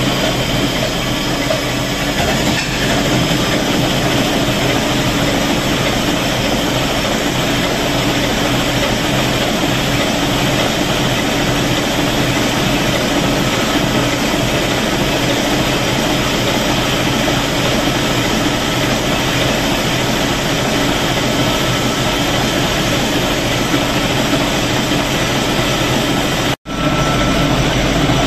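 Large inline multi-cylinder stationary diesel engine running steadily at an even speed, loud and dense with mechanical clatter. The sound cuts out for a moment near the end.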